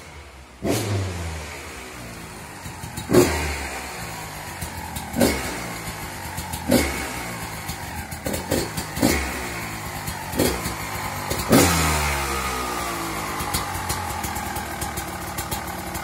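GasGas EC 250 two-stroke enduro engine breathing through an FMF Gnarly expansion chamber and Q Stealth silencer. It idles between about nine quick throttle blips, and each rev drops straight back to idle. The biggest blips come about three seconds in and near twelve seconds.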